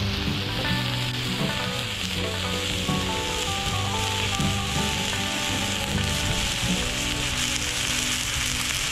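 Background music, a melody moving note to note, over a steady hissing noise.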